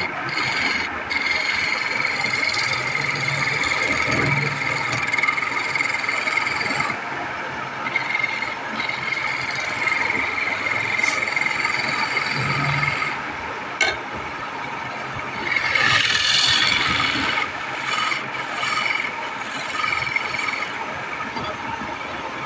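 A wood lathe spinning a baluster blank while a wide flat chisel scrapes along it, giving a steady high-pitched scraping whine over the hiss of cutting. About sixteen seconds in the cut gets louder and harsher for a second or two.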